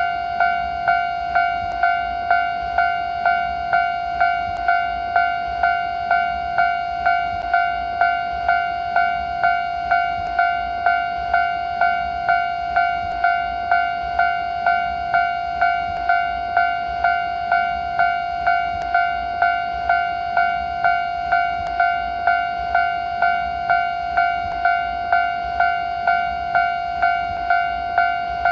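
Japanese level-crossing warning bell ringing: a loud pitched electronic ding repeated at an even pace of a little under two strikes a second, each strike ringing on into the next.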